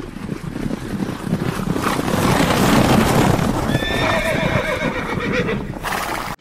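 A galloping horse's hoofbeats swell up, and a long, wavering horse whinny comes in on top of them about four seconds in. The whole sound cuts off abruptly at the end.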